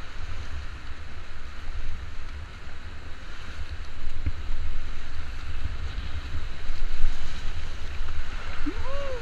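Rushing, splashing river water around a paddled whitewater raft, with wind rumbling on the action-camera microphone. Near the end, a short voice call rises and falls in pitch.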